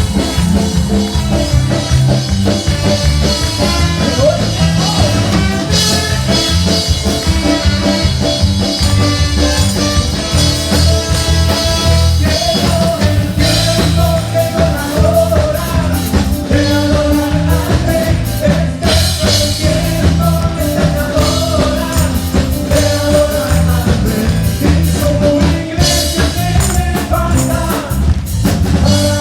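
Live band music with a drum kit keeping a steady beat under strong bass, and a wavering melody line on top.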